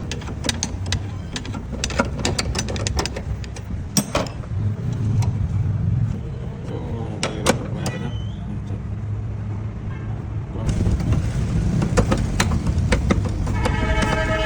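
A car engine running with a steady low rumble, with irregular sharp clicks and knocks over it during the first few seconds.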